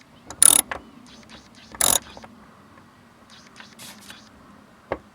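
Ratchet wrench with a 10 mm socket ratcheting in two short bursts about a second and a half apart, running down the module's retaining nuts. A single sharp click near the end.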